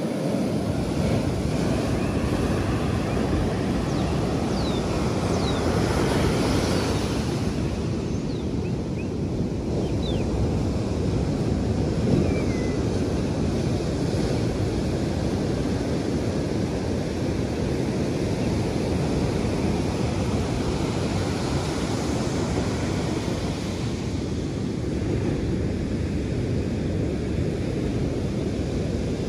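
Ocean surf breaking on a beach: a steady rushing wash of waves that swells about six seconds in, with wind on the microphone.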